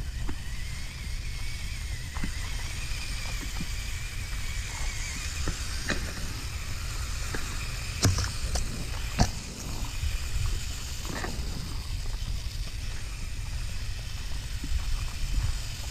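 Axial Capra RC rock crawler's electric motor whining faintly, wavering in pitch with the throttle, over a steady low rumble. A few sharp crunches and clicks of gravel and footsteps, the loudest about 8 and 9 seconds in.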